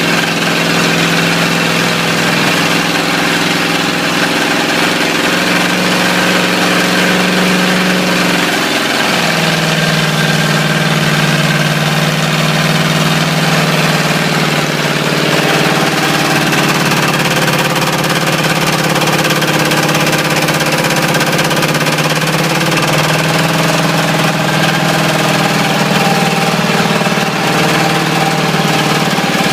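Ford 351 Windsor V8 with a spun bearing, running steadily. Its speed drops a little about nine seconds in, then holds.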